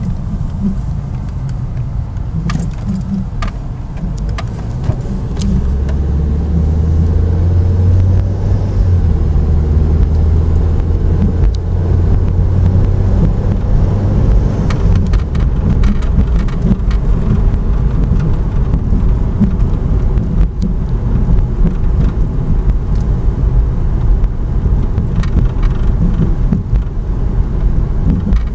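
A car being driven, with a steady low rumble of road and running noise and a stronger low drone through the middle. This is the annoying rubbing sound that the owner cannot trace.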